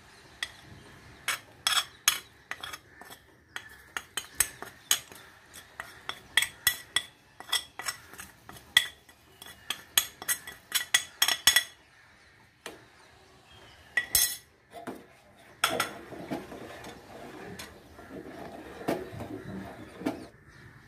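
A metal spoon clinking and scraping against a ceramic plate as spices and herbs are tipped into a steel saucepan: many quick, sharp clinks for about the first twelve seconds. Then, after a pause, a spatula stirring liquid in the steel pan, a softer continuous scraping.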